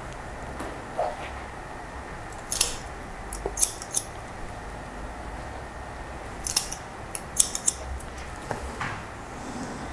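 Barber's scissors snipping through wet hair. The cuts come as sharp metallic snips in two runs of several each: one about two and a half seconds in, the other about six and a half seconds in.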